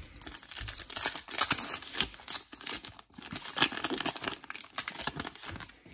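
Foil wrapper of a trading-card pack crinkling and tearing as it is ripped open by hand, in two stretches with a brief break about three seconds in.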